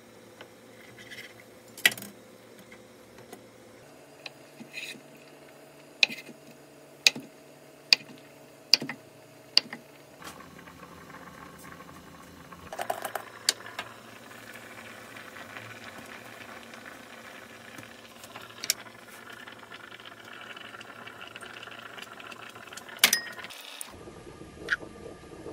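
A kitchen knife cutting through a block of tofu, the blade knocking sharply on a wooden cutting board, about half a dozen single strokes. Later, a steady low hum with a few light clatters of kitchenware.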